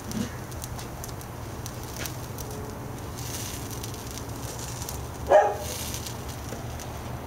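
Ham and cheese sandwich sizzling on a cast iron griddle grate in a covered grill, with fine crackling over a low steady hum. One short, louder sound about five seconds in.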